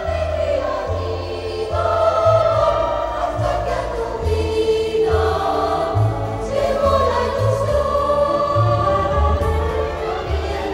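A school choir singing a slow melody in long held notes, accompanied by guitar.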